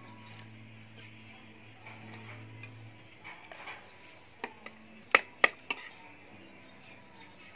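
A metal spoon clinking against a plate of rice, with a quick cluster of three or four sharp clinks about five seconds in.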